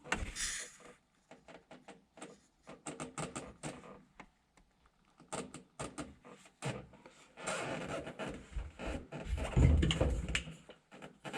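Hands handling small parts at a workbench: a run of light clicks and knocks, then a busier stretch of rattling and rustling with a louder bump near the end.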